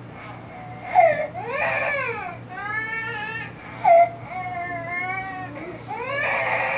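A baby crying in a run of about five wailing cries, each a second or so long, rising and falling in pitch.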